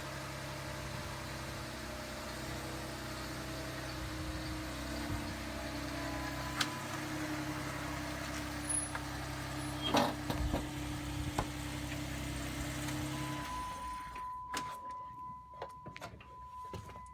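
A vehicle engine idling steadily, with a few light knocks, that cuts off about 13 seconds in. A steady high beep-like tone starts just before it stops and continues, with scattered clicks.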